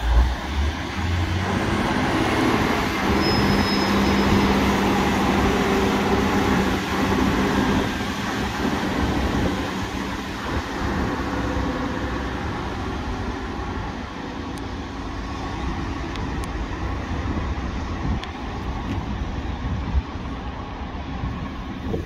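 Class 156 Super Sprinter diesel multiple unit pulling away from the platform, its underfloor diesel engines working hard as it accelerates. The engine note swells about two seconds in, then slowly fades as the train draws away.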